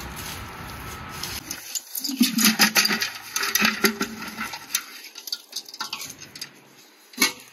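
Dry sticks clattering and scraping as they are tipped out of a metal bucket, with the bucket ringing low under the rattle, then the sticks being handled, and a single sharp knock near the end.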